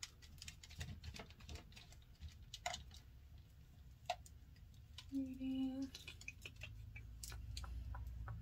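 Scattered light clicks and taps of small makeup items and containers being picked up and handled on a counter. A brief hummed note comes about five seconds in.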